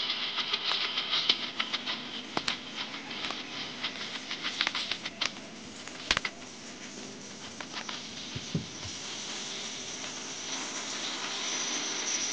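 Irregular light taps and clicks over a steady hiss, thinning out about eight seconds in.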